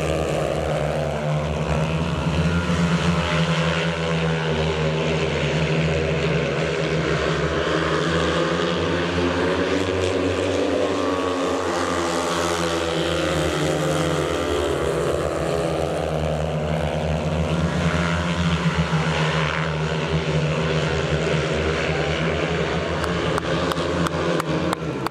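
Several speedway motorcycles racing, their 500 cc single-cylinder methanol engines running hard, the engine pitch rising and falling as the bikes go round the track.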